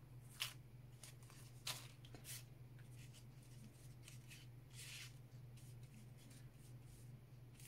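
Faint rustling and a few soft ticks of paper and a plastic sleeve being handled as small die-cut paper flowers are moved about, over a low steady hum.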